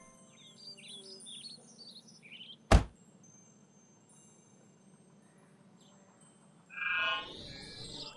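Cartoon sound effects for a toy robot: a run of twinkling chime-like chirps, then one sharp click about three seconds in as the battery cover on its back snaps shut. Near the end comes a short electronic whirr as the robot switches on.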